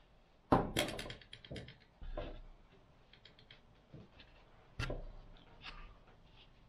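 Spinning rod and reel handled on a table while braided line is pulled off the spool: a sharp click and a quick run of ticks about a second in, then a dull knock and scattered taps and clicks.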